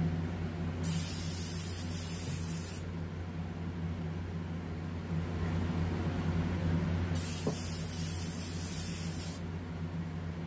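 An airbrush being flushed between colours: two bursts of spraying hiss, each about two seconds long, one about a second in and one about seven seconds in, over a steady low hum.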